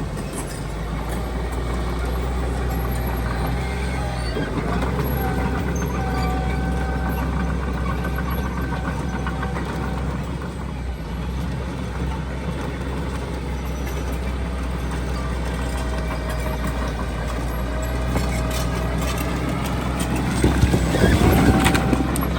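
Heavy diesel earthmoving machinery running steadily under load, a deep engine drone with a faint whine over it. A louder, rougher stretch comes near the end.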